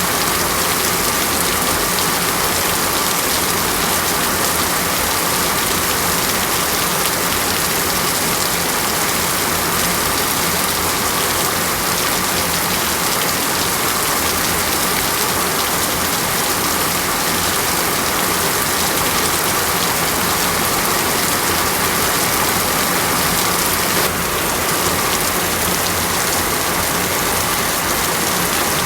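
Steady rainstorm in a tropical rainforest: rain pouring down as an even, unbroken hiss, with a faint steady high tone beneath it.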